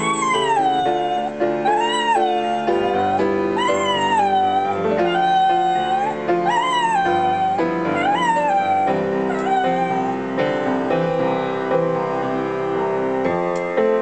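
Border Terrier howling along with a piano, a string of wavering howls that each rise and fall over the piano's chords. The howling stops about two-thirds of the way through and the piano plays on alone.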